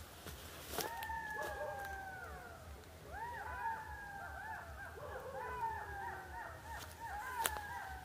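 Several canines calling together in chorus. Long falling howls start about a second in, and from about three seconds a tangle of short rising-and-falling yips overlaps them.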